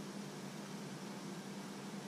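Steady hiss with a low, even hum underneath, unchanging throughout.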